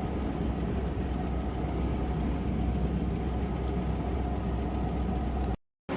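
Steady low engine and road rumble heard inside a vehicle moving on a motorway, cutting off abruptly near the end.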